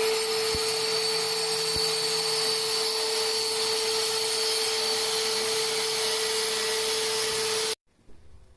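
A handheld electric power cutter cutting a stone countertop, with a wet-dry vacuum running beside it to draw off the stone dust. It is a steady, high whine over a hiss that stops abruptly near the end.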